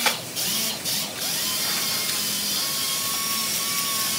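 Ratchet wrench being worked on a rusted bolt of a truck chassis cross member, over a steady high hiss.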